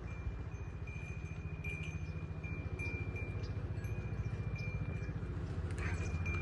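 An engine idling with a fast, even low throb that grows slightly louder, with a thin steady high tone above it.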